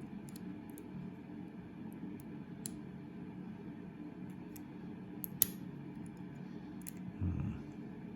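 Faint scattered clicks of a lock pick and tension wrench working the pin stack of a heavy Kryptonite padlock, with one sharper click about five seconds in, over a low steady hum. A short muffled handling sound comes near the end.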